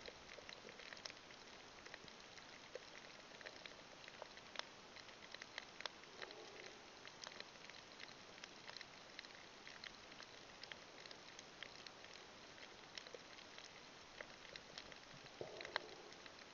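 Faint underwater reef crackle: many scattered sharp clicks over a steady hiss, the typical sound of snapping shrimp on a coral reef, with a brief low murmur twice.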